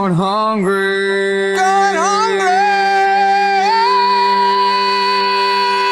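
Isolated male rock vocals singing long held notes without words, with a wobble in pitch near the start and again about two seconds in, and a step up to a higher note near four seconds.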